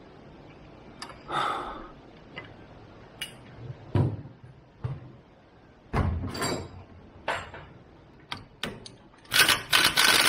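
Scattered metal clinks and knocks as a wrench and parts are handled at a car's front lower control arm, then, a little over nine seconds in, an impact wrench starts hammering loudly on a nut.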